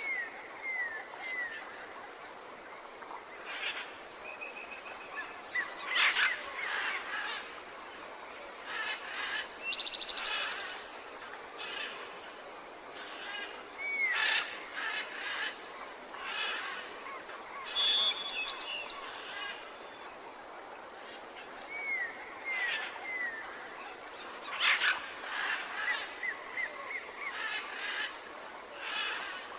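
Tropical forest ambience: several birds calling over a steady background hiss, with a repeated phrase of three or four short falling whistled notes every few seconds and brief rapid trills.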